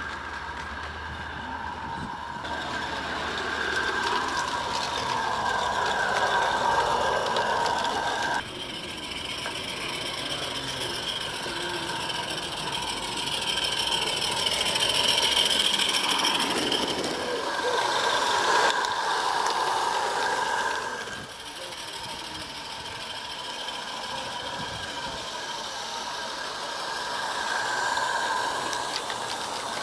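Small live-steam locomotives on a 16mm-scale garden railway running past, their wheels rattling on the rails with the hiss and chuff of steam. The sound grows louder as a train comes close and fades as it moves away, several times.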